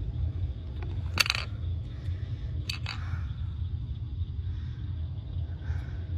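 A few sharp taps or knocks over a low, steady rumble: a loud one about a second in, then two close together near three seconds.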